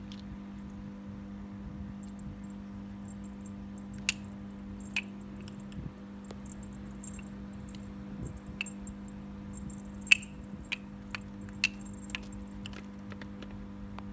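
Small ball batted by a kitten, ticking and clattering on a hard tiled floor and against a wooden table leg: a dozen or so sharp, irregular clicks and taps, the loudest about ten seconds in. A steady low hum underneath.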